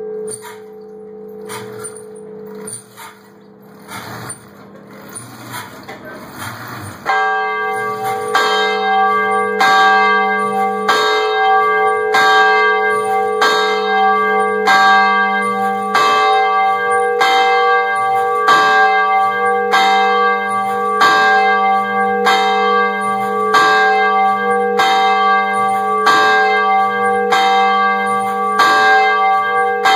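Large church bell swinging in its tower. For the first seven seconds its hum fades, with some faint clicks. Then it rings in full swing, struck about once a second, its tone ringing on between strokes.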